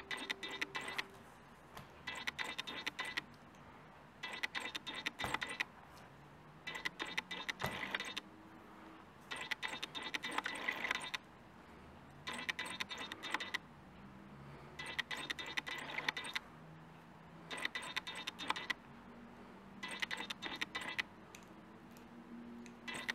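Metallic clicking and rattling from a 1/18 shaft-drive mini-crawler's aluminium chassis, suspension links and driveshafts as its axles are twisted back and forth by hand, in short bursts about every two and a half seconds.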